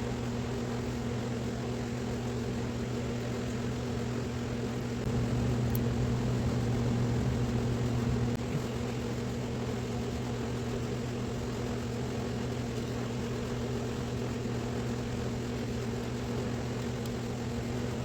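A steady mechanical hum over a bed of noise. It grows louder about five seconds in and drops back about three seconds later.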